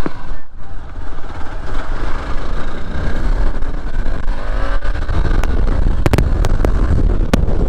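Hero Xpulse 200 4V motorcycle's single-cylinder engine running under way on a wet road, under a heavy low rumble of wind on the camera microphone. The engine revs up about four seconds in, and a few sharp ticks come near the end.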